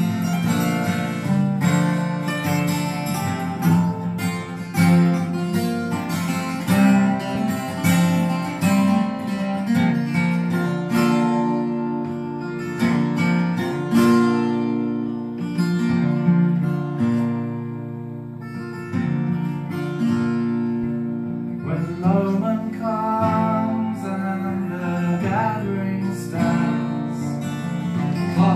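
Two acoustic guitars playing a folk tune together, picked and strummed. Midway the playing eases into softer held notes, then the picking picks up again.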